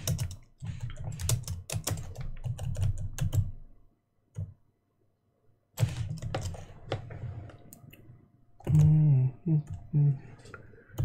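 Typing on a computer keyboard: runs of quick key clicks, pausing for about two seconds near the middle, with a man's voice briefly near the end.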